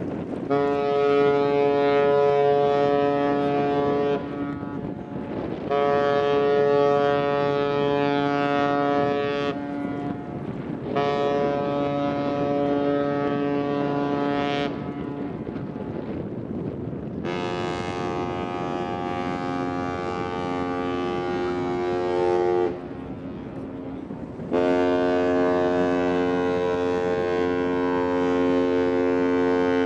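Ship's horns sounding a series of long blasts. First come three blasts of about four seconds each on one deep horn. Then a higher-pitched horn sounds, and the two sound together in a final long blast. Wind rumbles on the microphone underneath.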